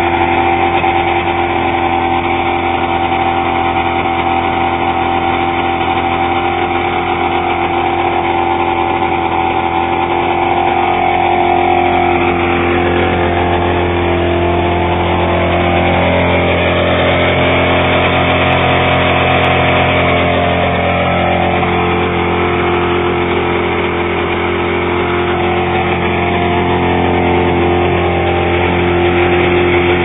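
Ski-Doo Blizzard snowmobile's two-stroke engine running steadily, with a slight waver in pitch midway.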